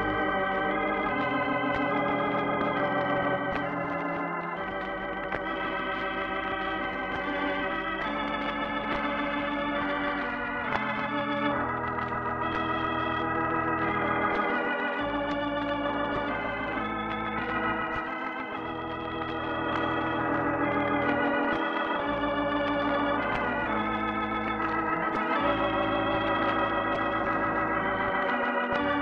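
Organ playing the radio program's closing music: sustained chords with a quick vibrato over bass notes that change every few seconds.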